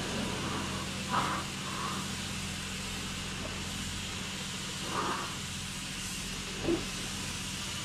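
Self-serve car wash pressure-washer wand spraying water onto a car, a steady hiss over a steady low hum from the pump. It is briefly louder a few times.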